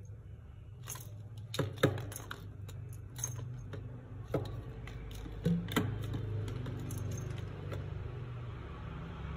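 Hollow plastic toy balls clicking and knocking against each other and the tile floor as kittens bat them around: scattered sharp knocks, the loudest about two seconds in and again near six seconds, over a steady low hum.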